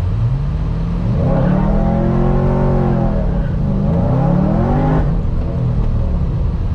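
Supercharged V8 of a 2010 Chevrolet Camaro SS under throttle, its pitch climbing for a couple of seconds and easing off, then rising briefly again and dropping near the end.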